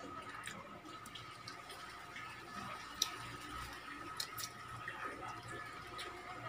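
Faint eating noises: soft chewing and mouth sounds with scattered small clicks, the sharpest about three seconds in, over a faint steady high hum.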